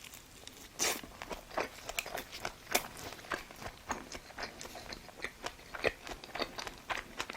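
A person chewing food, with irregular crisp crunches and wet clicks, several a second.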